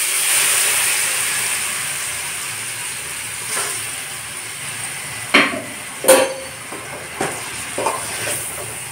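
Ground green masala paste sizzling in hot oil in an aluminium kadai, the hiss loudest at first and slowly dying down as the paste starts to fry. From about three and a half seconds in, a metal ladle knocks and scrapes against the pan several times as the paste is stirred.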